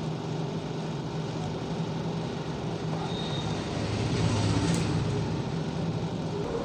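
Steady low mechanical hum with a noisy background, swelling slightly about four seconds in.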